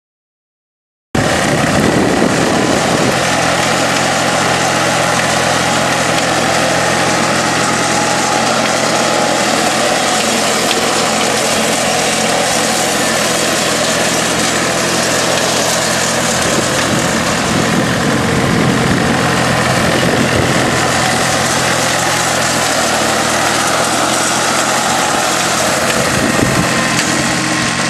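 Massey-Ferguson 1010 compact tractor's Toyosha 0.9-litre three-cylinder diesel running at a steady speed while driving a three-point rotary mower through grass, with a steady hiss over the engine note. It cuts in suddenly about a second in.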